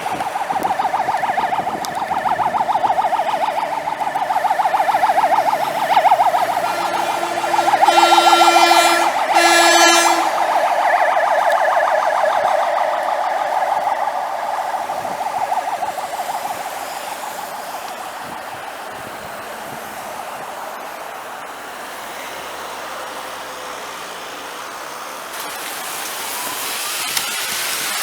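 Fire engine siren sounding in a fast warble, swelling as the truck approaches and fading as it moves away, with two short horn blasts about a third of the way in. Near the end another siren rises in pitch.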